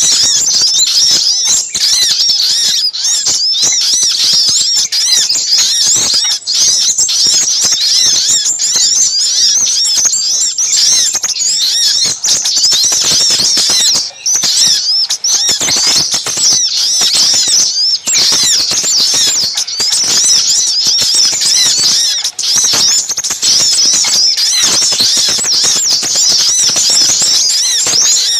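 A dense, unbroken chatter of small birds, with rapid high chirps and trills overlapping: a noisy ("ribut") bird-trapping lure recording of sogok ontong calls mixed with sepah raja (crimson sunbird).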